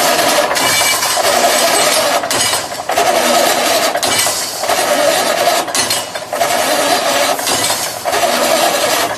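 Automatic brick force mesh welding machine running: a loud, steady mechanical din that swells and dips briefly every second or two as the machine works through its repeating cycle.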